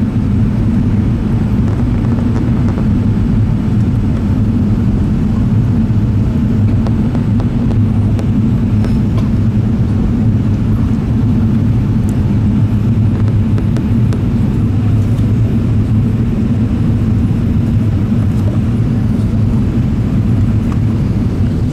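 Airbus A380 cabin noise during the climb after takeoff, heard from a rear economy seat: a loud, steady low drone of the four engines at climb thrust mixed with the rush of airflow past the fuselage.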